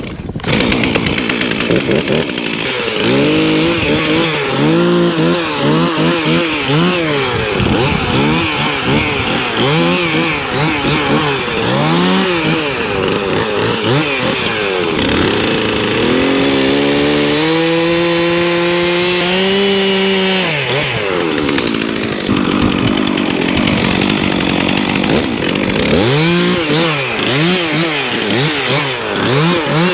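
Two-stroke chainsaw running, its revs rising and falling again and again in quick throttle blips. About halfway through it holds at high revs for a few seconds, then drops back and the blipping resumes.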